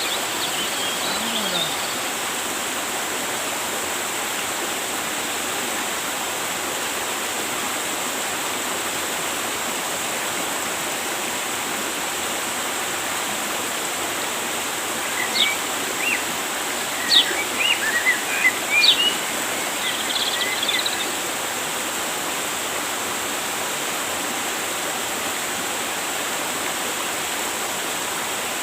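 River water rushing steadily. A small bird chirps a string of short calls just past the middle.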